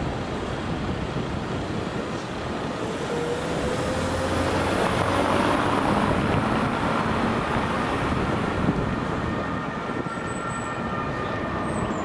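Fire engines' diesel engines running as they pull out, with street traffic noise; one engine's pitch rises briefly about three seconds in.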